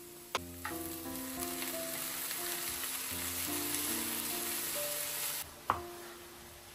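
Diced potatoes and mushrooms sizzling as they fry in a pan, with a couple of sharp knocks early on as the food goes in and is stirred. The sizzle cuts off suddenly about five and a half seconds in, followed by a single sharp knife tap on a wooden cutting board. Background music plays throughout.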